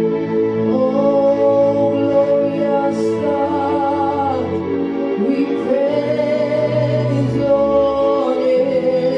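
Gospel praise-and-worship music: a voice singing long held notes over sustained instrumental chords.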